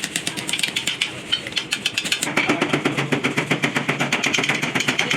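Rapid, evenly spaced hammering on metal, many strikes a second like a pneumatic or power hammer, growing louder and fuller about two seconds in.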